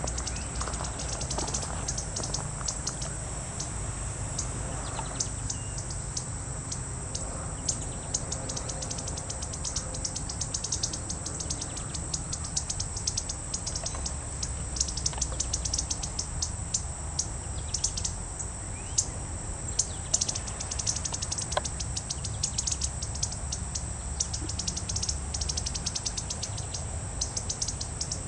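Male indigo bunting singing in repeated high, quick phrases, over a steady high-pitched insect buzz.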